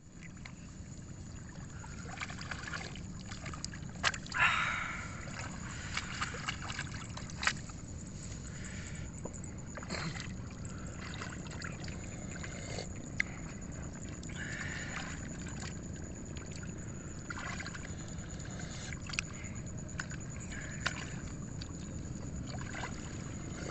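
Sloshing and splashing of muddy paddy water as rice seedlings are pulled up by hand from a nursery bed, with a louder splash about four seconds in, over steady low background noise.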